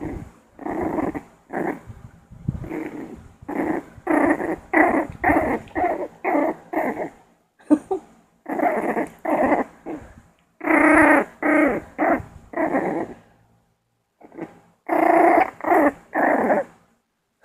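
Puppy growling in play: a long run of short, pitched growls in quick clusters, with a few short pauses between them.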